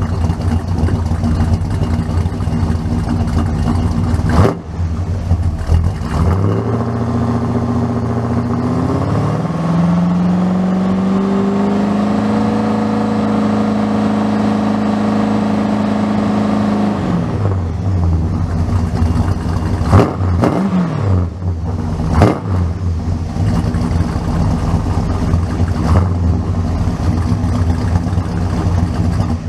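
1963 Chrysler New Yorker's 413 V8 running through its exhaust. It idles, is revved up about six seconds in and held at a steady raised speed for around eight seconds, then drops back to idle, followed by two quick throttle blips.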